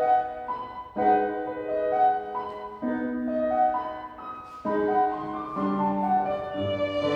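Piano playing a slow passage of chords and notes, part of a live piece for violins and piano.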